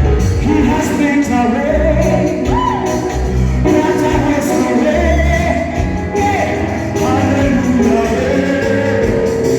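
Music with singing: a sung melody over instrumental backing with a pulsing bass.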